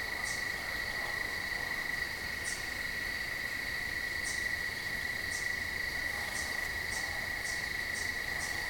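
Crickets trilling in one steady high tone, with short, sharp higher chirps joining in from about four seconds in and repeating roughly every half second.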